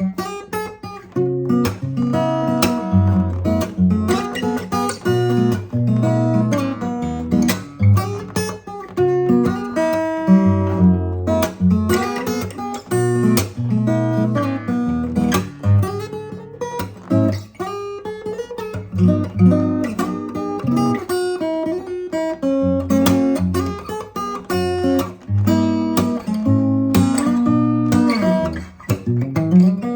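Martin OM-28 steel-string acoustic guitar played unaccompanied, with a mix of picked notes and strummed chords.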